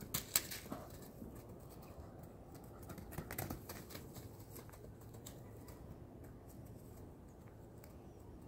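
Scattered soft thuds and scuffs of a foal's hooves on grass and dirt as it runs. They come in two short clusters, one just after the start and one about three seconds in.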